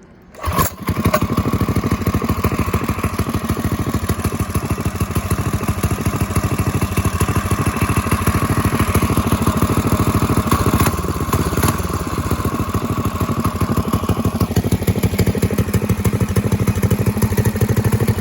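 1970 Bird minibike's small single-cylinder engine starting up about half a second in and then running steadily, fitted with a main jet one size leaner to cure running rich. A steady high whine rides on the engine note until about three-quarters of the way through.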